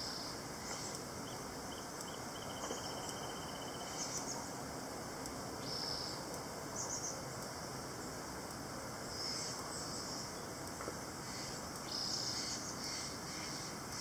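Cicadas buzzing in short, high-pitched bursts that recur irregularly every second or two, over a steady outdoor hiss.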